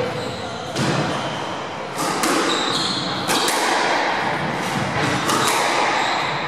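Squash rally: the ball cracks off rackets and the court walls about once a second, each hit echoing in the enclosed court, with short squeaks from shoes on the wooden floor.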